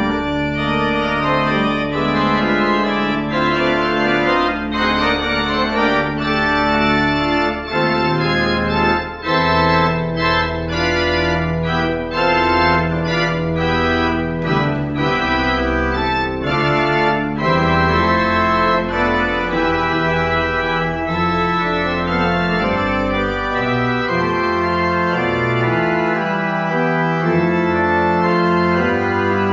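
Church pipe organ playing a full, many-voiced piece in sustained chords over deep bass notes; the deep bass stops about 24 seconds in while the upper parts carry on.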